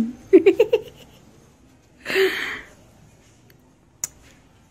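A person's voice: a quick run of about five short vocal sounds near the start, then one breathy exhale about two seconds in. A faint click near the end.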